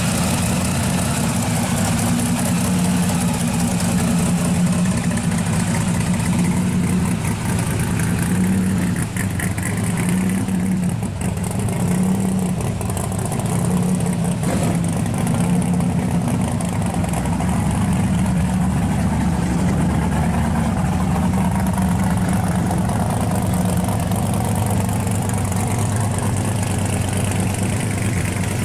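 Supercharged V8 of a black pro-street 1961 Chevrolet bubble top idling with a loud, uneven, loping rhythm as the car sits and then creeps along.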